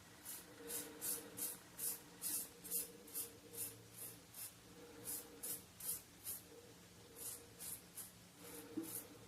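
Short scraping strokes of a Rockwell 6C safety razor with a SuperMax Blue Diamond blade across the stubble of a shaved head, about two to three a second with a brief pause past the middle. The razor is gliding on the conditioner's leftover residue without fresh lather, a test of its residual slickness.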